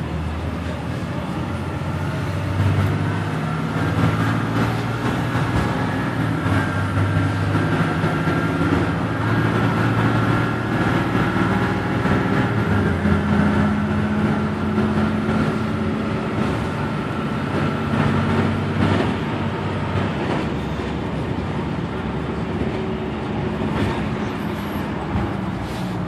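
A Blue Bird Vision school bus's Caterpillar C7 diesel engine running under way, heard from inside the cabin along with steady road noise. The engine's pitch steps up and down a few times.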